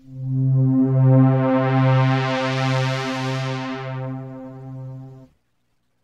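Ensoniq ASR-10 sampler sounding one sustained low synth note, pulsing slightly about every 0.7 seconds. The filter opens to bring the tone up bright around the middle, then closes it back down to a dull tone. The note stops cleanly about a second before the end.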